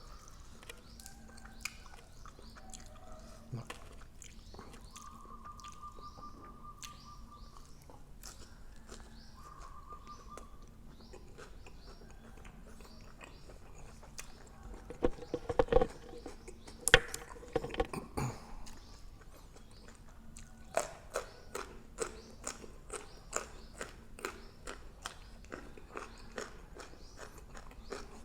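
Close-up chewing and biting of grilled pork neck: a steady run of wet mouth clicks and smacks. A louder spell of crunching and clatter comes about halfway through.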